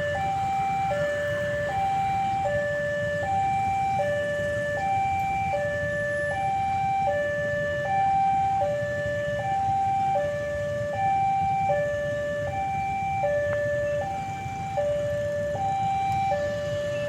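Two-tone electronic warning siren alternating evenly between a high and a low note, each held about three-quarters of a second, over a steady low rumble.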